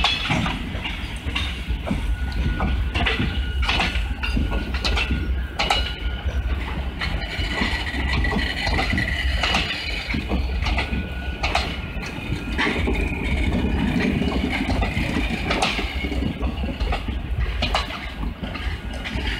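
Indian Railways express train coaches rolling past, wheels clacking over rail joints above a steady low rumble, with a thin high whine at times.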